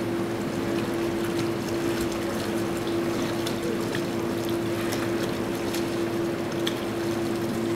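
Hands stirring and sloshing calf milk replacer in warm water inside a metal mixing tank, over a steady machine hum.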